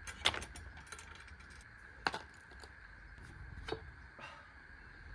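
Bicycle chain and tools clinking as the BMX chain is taken off: a few sharp metallic clicks, the loudest about a quarter second in and about two seconds in.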